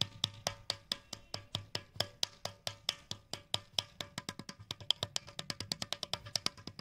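A wooden paddle beating the wall of a leather-hard clay pot against an anvil held inside, to thin and shape it: quick, hollow knocks about four a second that speed up to six or seven a second near the end.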